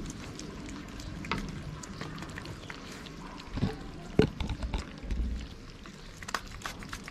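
Several cats and kittens eating wet cat food from plates, with many small, wet lapping and chewing clicks. A couple of short low bumps come about three and a half and four seconds in, the second the loudest sound.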